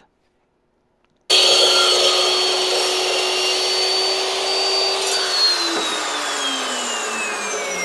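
Chop saw motor and blade running at full speed, starting abruptly about a second in after dead silence; from about five seconds in its pitch falls steadily as the blade spins down after the trigger is released.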